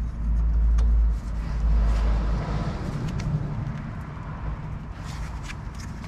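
Light metal clicks and knocks of a tool working at the back of a Fiat 500's front brake caliper, a handful of separate clicks over a low rumble that is loudest in the first two and a half seconds.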